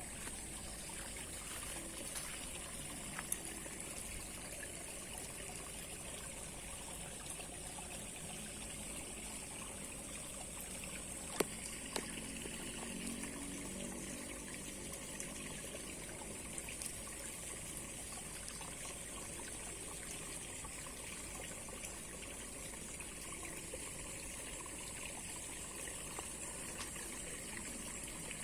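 River water trickling and flowing steadily, with a steady high hiss over it and a few faint clicks, one sharper about eleven seconds in.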